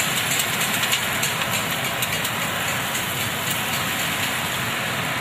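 Popcorn and grain roasting machine running with a steady mechanical noise and scattered sharp clicks.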